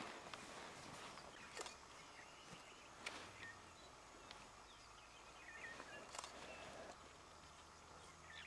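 Quiet outdoor ambience: scattered faint high chirps and twitters, a few sharp clicks, and a low steady hum that comes in about three seconds in.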